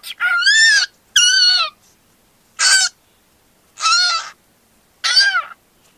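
Pet cockatiel giving five short, harsh chirping calls, about one a second, each rising and falling in pitch.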